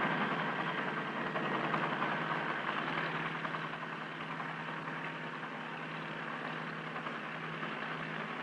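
Helicopter flying overhead: a steady rush of engine and rotor noise with a low hum, which eases off a little over the first few seconds and then holds.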